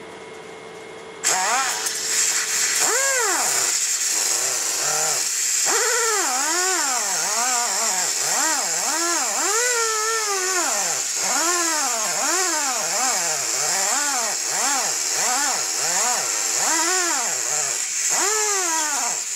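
Pneumatic air sander with 120-grit paper starting about a second in and running against the cast-iron lathe bed, sanding off scale rust. Its pitch rises and falls over and over, about once a second, as the pad is worked over the bed.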